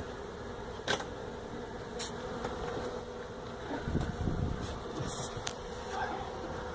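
Steady hum of a mass of honey bees buzzing around an opened hive during a cut-out, with a few sharp clicks from handling the comb.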